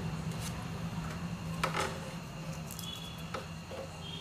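Light scrapes and a few short clicks from a screwdriver and hands working among an amplifier's filter capacitors and wiring, the loudest about a second and a half in, over a steady low hum.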